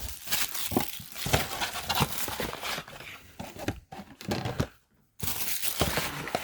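Cardboard and plastic packaging crinkling and rustling with small irregular taps and clicks as a trading-card box's contents are handled and unpacked. The rustling stops for a moment shortly before five seconds in, then resumes.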